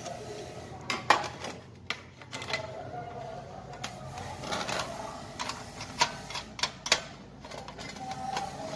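Irregular plastic clicks and taps as panel-mount pilot lamps and their plastic locking rings are handled and fitted against a sheet-metal panel door, the sharpest click about a second in.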